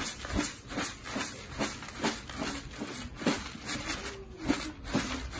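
Jhalmuri (dry puffed rice mixed with chopped vegetables) tossed and shaken in a plastic basin: a dry rattling rustle with irregular sharp taps, about three a second.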